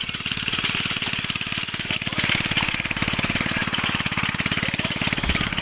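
A small engine running steadily, with a rapid, even beat of firing strokes.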